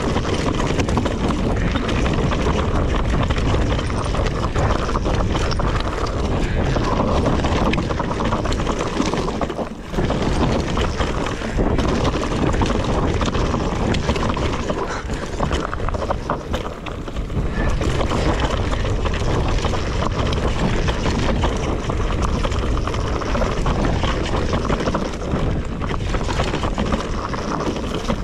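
Wind buffeting the camera's microphone over the tyre noise and chain and frame rattle of a Whyte E180RS electric mountain bike riding fast down a rough dirt singletrack. It eases briefly about ten and seventeen seconds in.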